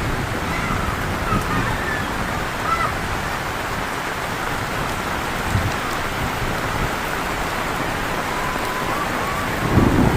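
Heavy rain falling steadily, with a low rumble of thunder starting near the end.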